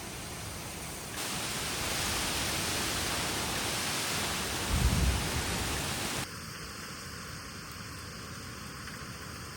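Steady rain, heard as an even hiss that steps louder about a second in and drops back abruptly near six seconds. A brief low thump comes about five seconds in.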